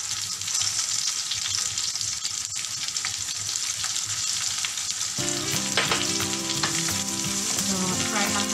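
Whole pompano, ginger and shallots sizzling in hot cooking oil in a frying pan, being stir-fried with a wooden spatula near the end. A steady pitched sound joins about five seconds in.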